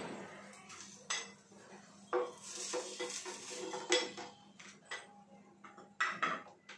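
Cookware clatter: a spatula knocking and scraping on a tawa and a plate as a cooked adai is lifted off the pan, with a few sharp clinks and a short run of ringing strokes in the middle.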